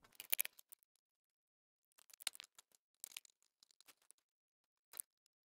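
Light clicks and rattles of laptop parts being handled as the mainboard goes back into the chassis, in a few short clusters separated by silence, with one sharper click near the end.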